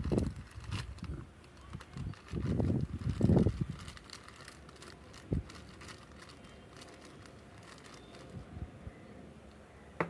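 Thin clear plastic bag crinkling and rustling as hands squeeze and press damp cocopeat inside it around a hibiscus stem, with dull low thumps in the first few seconds and a single thump about five seconds in.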